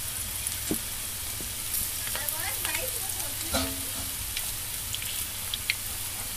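Bread-and-onion pakoras deep-frying in hot oil in a pan: a steady sizzle with scattered small pops and crackles.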